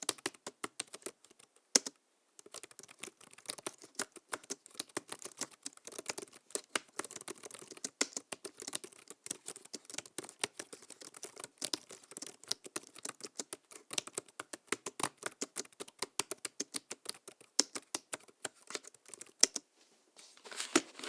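Fast typing on a low-travel laptop keyboard: a dense run of light key clicks, with a short pause about two seconds in. It ends with a brief rustle just before the typing stops.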